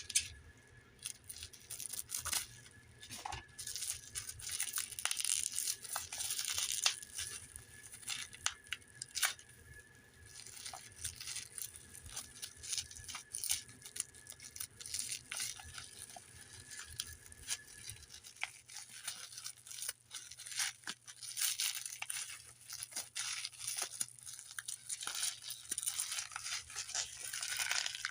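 Packaging being unwrapped by hand: irregular tearing, crinkling and rustling with many small clicks and snaps.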